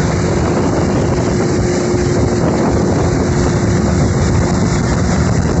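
Motorboat under way: a steady loud rush of wind on the microphone over the boat's engine and passing water, with a faint steady hum that fades out near the end.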